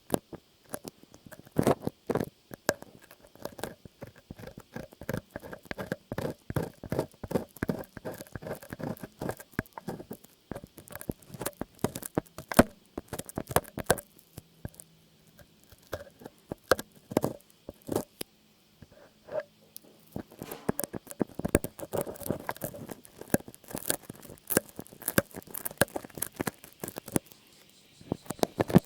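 Rapid, irregular light tapping and scratching, many small clicks a second, thinning out for a few seconds near the middle.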